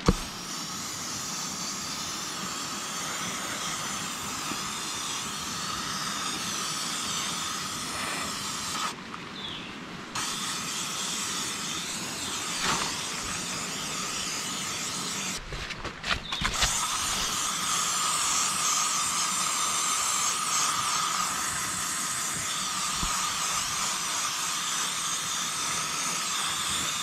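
Hissing spray of a bug-killing product onto wood-bored wooden posts, a long steady hiss that stops briefly twice, about nine and about fifteen seconds in.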